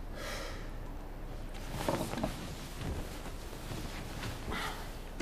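Bedsheets rustling in short swishes as a person shifts and sits up in bed, over a low steady hum.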